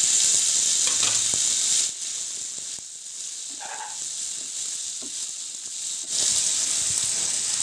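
Onions, tomatoes and whole spices sizzling in hot oil in a nonstick frying pan, stirred with a wooden spatula. The sizzle drops quieter about two seconds in and comes back loud about six seconds in.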